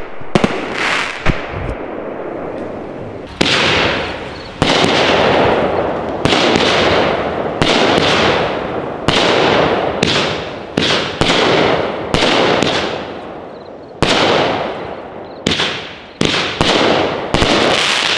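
Cherry Bomber 10-shot, 200-gram consumer firework cake firing: a string of sharp reports about a second apart, each shell's burst followed by a spray of crackles that dies away. It starts suddenly out of silence.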